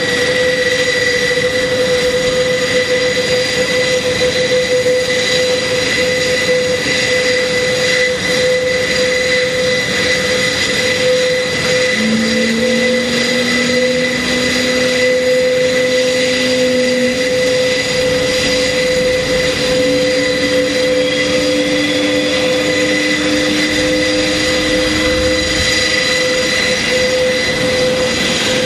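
Airbus A400M's Europrop TP400-D6 turboprop engines running with a steady high whine. About twelve seconds in, a lower tone appears and slowly climbs as another engine starts and spools up.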